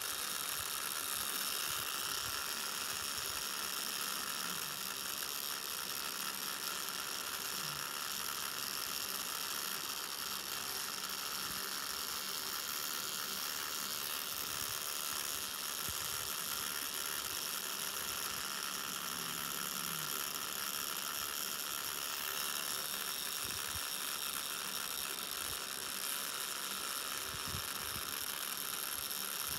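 Tattoo machine buzzing steadily as its needle draws outline work into skin.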